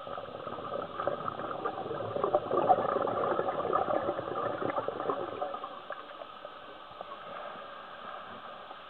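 Scuba diver's exhaled bubbles from the regulator, a crackling, gurgling rush that builds for a few seconds and fades out about five seconds in, leaving a quieter underwater hiss with faint ticks.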